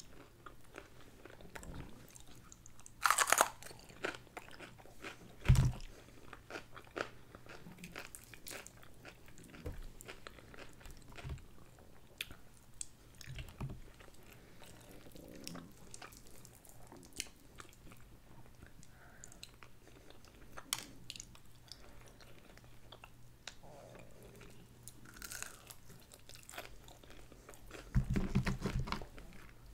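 Close-miked eating of fried chicken: crunchy bites through the crispy breading and steady chewing, with one loud crunch about three seconds in. A dull knock comes about five seconds in, and a short low handling noise near the end.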